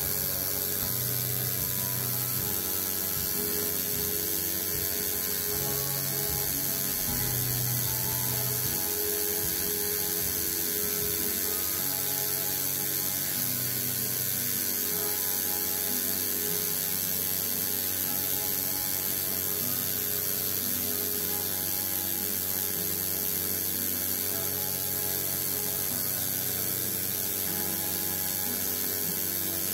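Home-rebuilt coil tattoo machine buzzing steadily as it drives a single needle into skin, lining small script lettering.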